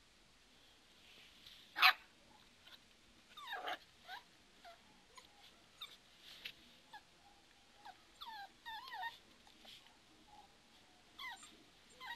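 A dog whimpering and whining in short, high cries that slide up and down in pitch, coming in scattered clusters as it plays with a cat. About two seconds in there is a single sharp, short noise, the loudest moment.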